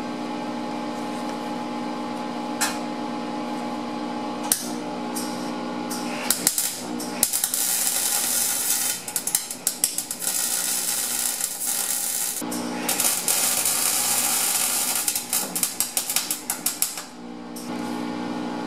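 Electric arc welder tack-welding a 3x4 rectangular steel tube upright to the cross member of a tube frame. The arc crackles for about six seconds, stops briefly, then runs again for about four seconds. A steady hum sounds before and after the welding.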